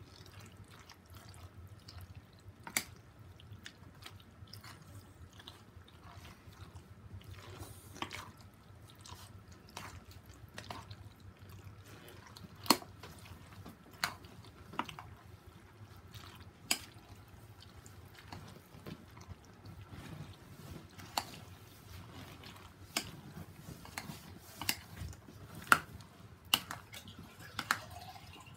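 A spoon mixing macaroni salad with mayonnaise in a bowl: soft wet squelching, with irregular sharp clinks of the spoon against the bowl.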